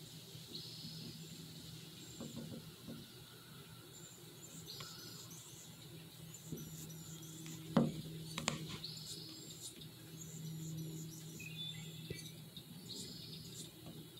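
Quiet outdoor pond-side ambience: a short, high chirp repeats about every four seconds over a faint, steady low hum. Near the middle come a couple of sharp knocks from the camera being handled.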